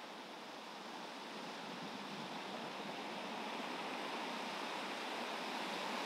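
Ocean surf: a steady rush of waves breaking and washing in, growing gradually louder.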